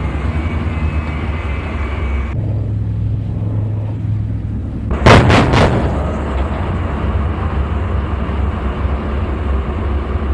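A gun firing three sharp shots in quick succession about five seconds in, over a steady low rumble that grows louder after the shots.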